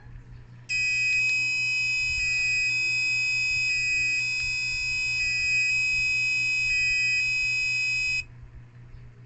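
An Arduino-driven buzzer sounds a high, piercing alarm that switches back and forth between two pitches several times. It starts just under a second in and cuts off suddenly about a second before the end. The two-tone alarm means the light sensor (LDR) is reading above the code's threshold of 550.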